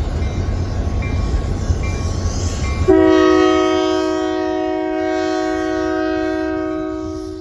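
Three-unit set of Union Pacific diesel-electric locomotives rumbling as they approach, then the lead unit's multi-note air horn sounding one long blast about three seconds in, held for about four and a half seconds.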